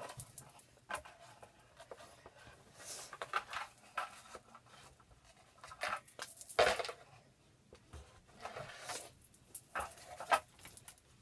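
Cardboard and paper being handled at close range: irregular rustling, scraping and light taps in short bursts, the loudest about six and a half seconds in.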